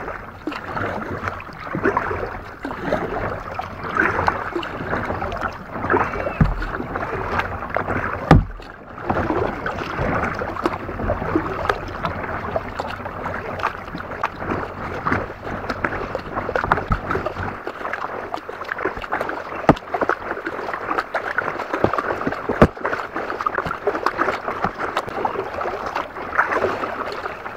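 Kayak paddling: the paddle splashing and dripping water on each stroke, with water washing along the hull and a few sharp knocks.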